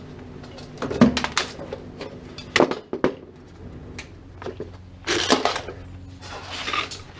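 Irregular knocks and clanks of metal tools and parts being handled: a few sharp strikes in the first three seconds, then short scraping rustles.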